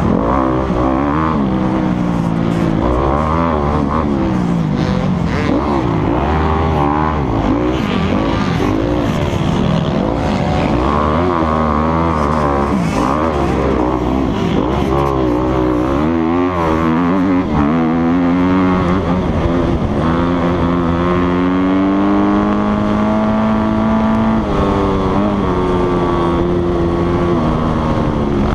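Motocross dirt bike engine heard from the rider's helmet camera, revving hard and dropping again and again through throttle changes and gear shifts. In the last third the revs climb more slowly and hold higher for several seconds before stepping down.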